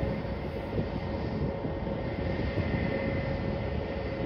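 Engines of a Star Flyer Airbus A320 jet airliner at takeoff power during its takeoff roll, heard from far off: a steady rumble with faint whining tones.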